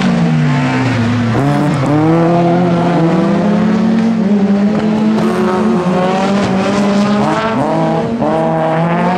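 Rallycross race cars' engines racing past at full throttle, more than one engine heard at once. The pitch rises again and again through the gears and drops on lifting off for the corners, with repeated rising sweeps in the second half.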